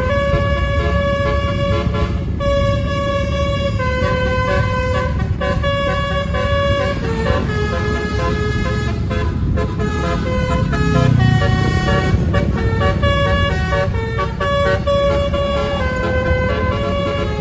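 A Satria Jaya bus's basuri multi-tone air horn (telolet) playing a tune of held notes, each lasting a second or two, over the bus's low engine rumble, which swells about eleven seconds in. The tune is pleasant, but the horn trumpets sound a bit odd to the uploader.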